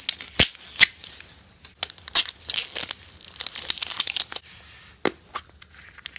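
A paper wrapper is being peeled and torn off a plastic surprise-egg capsule, with rustling and crinkling. A few sharp clicks of the plastic shell come early on and about five seconds in, the last as the capsule is snapped open.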